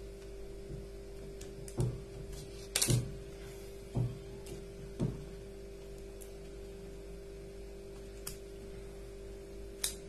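Small sharp clicks and taps of a tester screwdriver and wires being worked into the terminal of a cooler switch, about half a dozen separate knocks, the loudest a double click about three seconds in, over a steady background hum.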